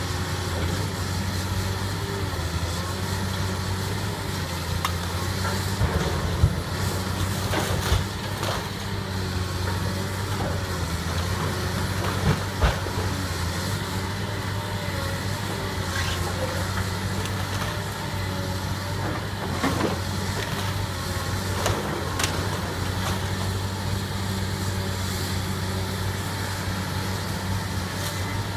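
Caterpillar 322 hydraulic excavator's diesel engine running steadily with a low hum while its demolition attachment breaks down a brick house wall. Several sharp cracks and thuds of breaking and falling masonry cut through, the loudest about six and twelve seconds in.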